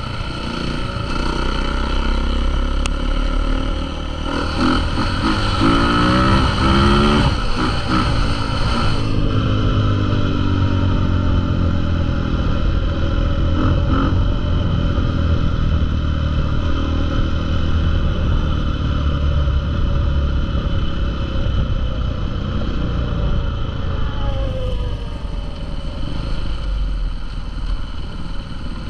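Motocross bikes running and revving, their engine pitch rising and falling as riders work the throttle; the revving is busiest early on, then settles into a steadier drone of several engines.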